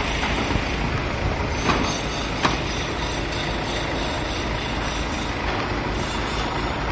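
Steady rumbling noise of construction-site machinery, with two sharp knocks about two seconds in.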